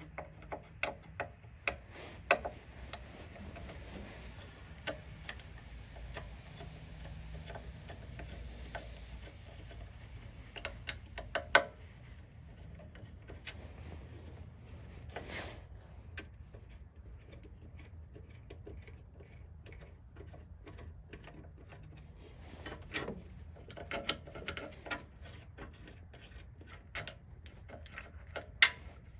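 Scattered clicks, taps and light rubbing of hand work on a snowblower's electric-start parts, small parts and a tool being handled, with the sharpest click about eleven and a half seconds in.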